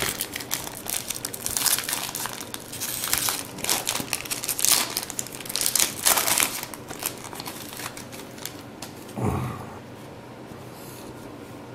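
A baseball-card pack wrapper being torn open and crinkled for about eight seconds, then quieter rustling of the cards.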